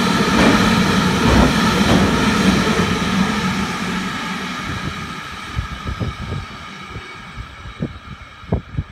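Container wagons of a freight train rolling past, a steady rumble and clatter of wheels on rails that fades away as the last wagons draw off. A few sharp knocks follow near the end.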